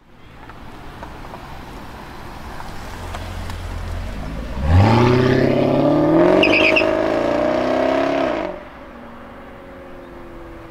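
Jaguar XK-series coupe's V8 rumbling at low revs as it pulls away, then about five seconds in a hard full-throttle acceleration, loud, with the engine note climbing steadily in pitch. Near the end the revs drop and the sound falls away to a quieter hum as the car moves off.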